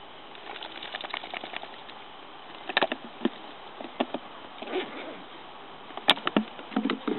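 A dog mouthing a green glass bottle on sandy ground: scattered light clicks and knocks of teeth and paws on glass, the sharpest about six seconds in.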